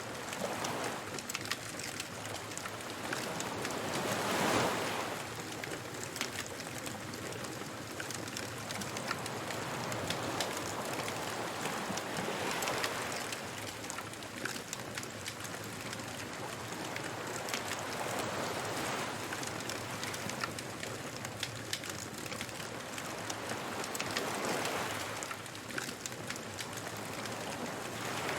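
Ocean waves breaking on a beach, swelling and washing in about every six to seven seconds, with a bonfire crackling in small sharp pops throughout.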